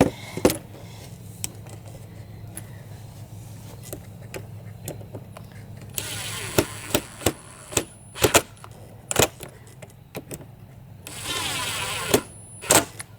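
Power drill driving exterior-grade 1 1/4 inch screws into a pocket-hole wood joint in two runs, the first about two seconds long starting about halfway through, the second about a second long near the end. Sharp clicks and knocks of screws and wood being handled fall in between.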